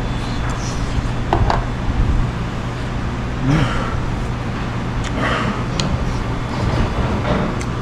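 Metal spoon clinking against the soup bowls a few times over a steady low hum of restaurant room noise, with a man's short closed-mouth 'mmm' of enjoyment about three and a half seconds in.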